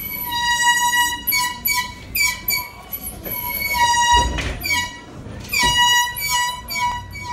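Music with a held high-pitched tone that breaks off and comes back several times, other short notes over it, and a low thump about four seconds in.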